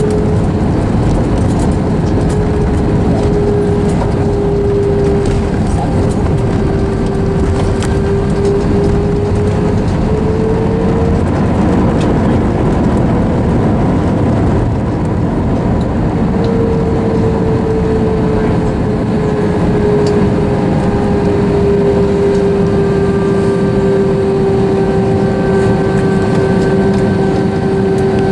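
Cabin noise inside an Airbus A321 taxiing on the ground: a steady low rumble with the idling turbofans' whine, which rises a little twice and settles back.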